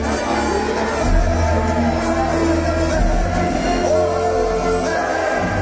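Music with a singing voice: the fireworks show's soundtrack, with a steady bass under the melody.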